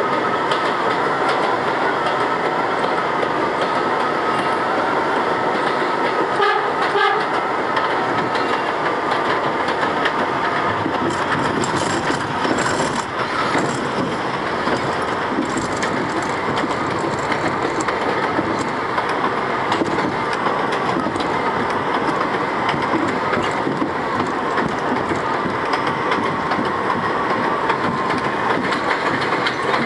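R62A subway train running at speed on elevated track, heard from inside the front car, with steady wheel-and-rail noise and clatter over the rail joints. A steady high whine runs through it.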